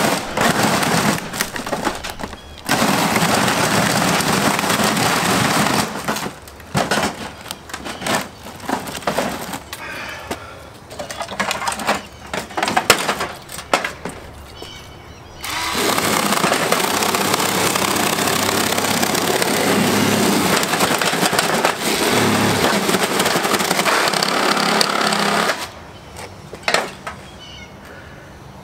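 Chainsaw cutting into a flat-screen TV. For the first fifteen seconds it runs in bursts, stopping and starting, with sharp knocks in between. Then it runs steadily for about ten seconds and cuts off suddenly.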